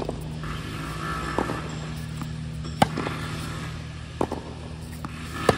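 Tennis balls struck by rackets in a baseline warm-up rally: a sharp pock about every second and a half, louder hits from the near player alternating with fainter ones from the far end, over a steady low hum.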